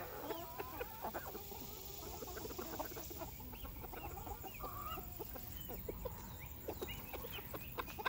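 A backyard flock of chickens, silkies and bantams among them, clucking softly in short, scattered calls while they forage.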